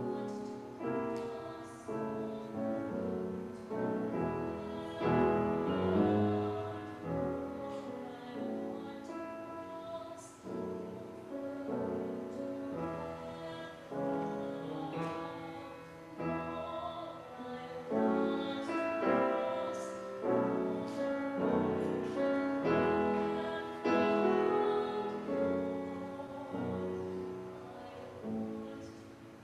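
Upright piano playing a classical-style accompaniment, with a woman's solo voice singing in places.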